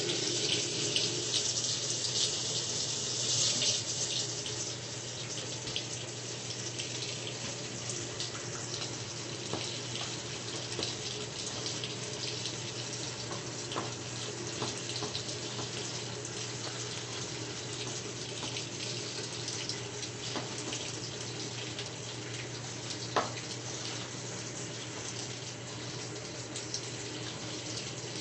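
Water running steadily into a top-loading washing machine, louder for the first few seconds, over a steady low hum. One sharp click late on.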